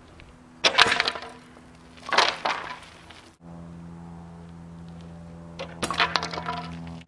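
A BMX bike clattering and clanking on hard ground as it is ridden through tricks: three short, sharp crashes of metal and tyres landing, about a second in, about two seconds in and near the end. After a cut a little past three seconds, a steady low hum runs under them.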